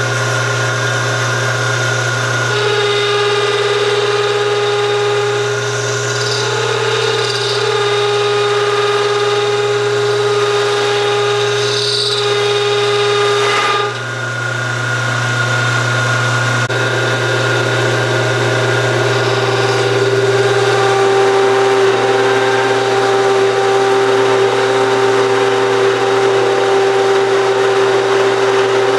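Small machine tool running steadily while cutting metal, a constant motor hum under a held whine. The tone and load change a few times, with a short drop in level about halfway through.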